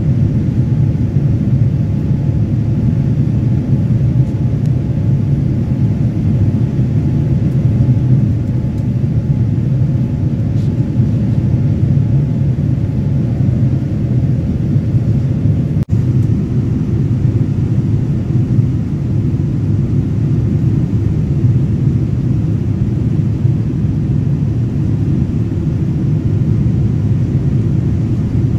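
Steady low rumble of a Boeing 787-9's engines and rushing air heard inside the passenger cabin, climbing after takeoff. The sound cuts out for an instant just over halfway through.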